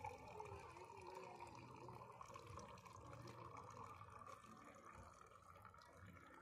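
A thin, steady stream of water pouring faintly into a glass tumbler.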